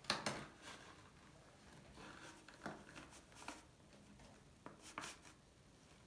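Quiet room with a few faint, short clicks and light scrapes. There is a sharper click right at the start, a few more about two and a half to three and a half seconds in, and a small cluster around five seconds.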